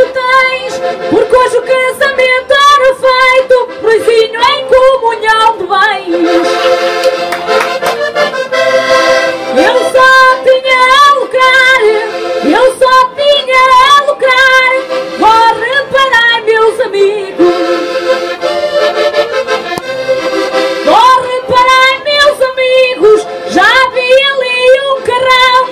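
Diatonic button accordion (Portuguese concertina) playing a lively traditional tune over a steady held note.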